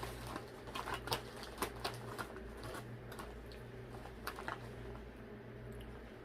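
Close-up eating sounds: irregular wet clicks and crackles of chewing, densest in the first couple of seconds with a few more later, over a steady low electrical hum.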